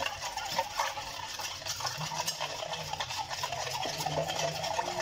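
Garlic-and-salt water being stirred by hand in a stainless steel bowl: light swishing with many small clicks against the metal.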